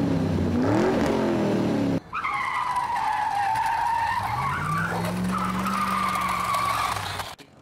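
Racing-car engine revving and tyre squealing, the engine pitch rising and falling. About two seconds in it cuts off suddenly, giving way to a long high squeal with a low engine note rising beneath it, which stops abruptly near the end.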